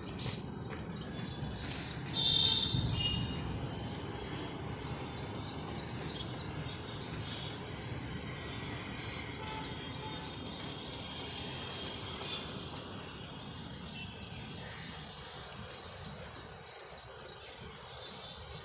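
Outdoor town ambience: a steady low rumble, like wind or distant traffic, with birds chirping here and there. The loudest chirping comes about two seconds in, and the rumble eases near the end.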